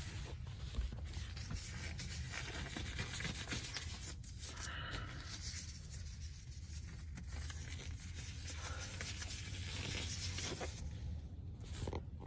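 Soft rubbing and rustling with light scrapes, the sound of gloves being pulled on and handled close by, over a steady low hum.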